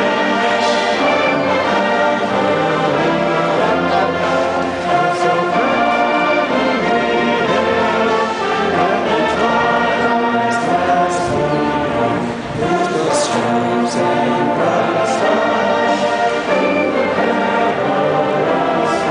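Marching band playing a slow piece in long held brass chords, with crowd voices joining in.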